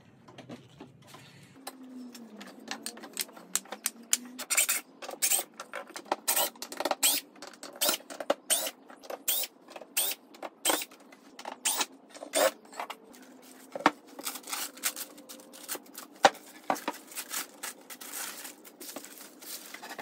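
Irregular sharp knocks and clatters of workshop handling: weight plates and a cordless drill-driver set down and picked up on a wooden board, sometimes several knocks a second.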